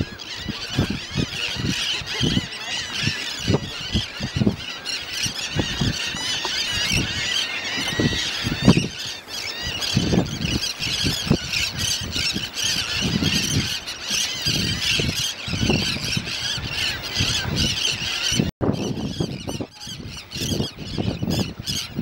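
A large feeding flock of seabirds, terns and brown pelicans, with many terns calling at once in a dense, continuous chorus of high calls. Irregular low thumps run underneath, and the sound drops out for an instant near the end.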